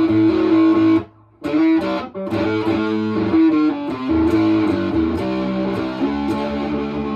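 Electric guitar played through a Harmonic Percolator-style overdrive/fuzz pedal with its clipping diodes bled fully out, playing a riff of notes and chords. The playing breaks off briefly about a second in, and a chord is left ringing near the end.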